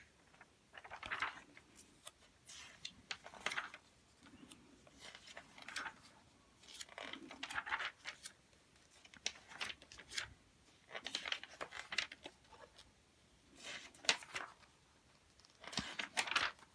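Magazine pages being turned one after another, each a short papery swish, about one every second or two.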